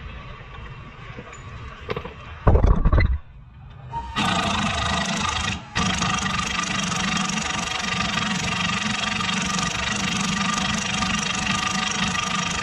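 A short, heavy thump, then from about four seconds in a loud, steady machine noise that drops out briefly near six seconds and starts again.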